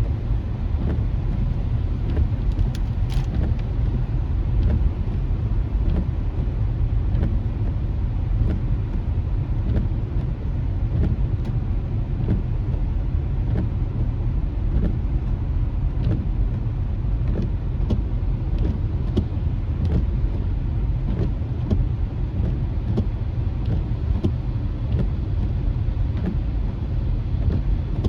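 Car cabin road noise on wet streets: a steady low rumble with tyre hiss, and scattered faint ticks.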